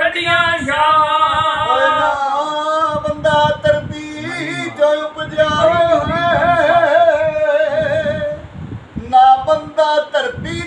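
Unaccompanied male singing of Punjabi kavishari: long held notes with a wavering pitch, with a short break near the end.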